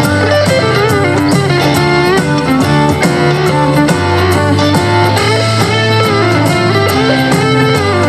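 Guitar-led music with a steady bass line, played at 75% volume through a JBL Bluetooth speaker and picked up by a microphone.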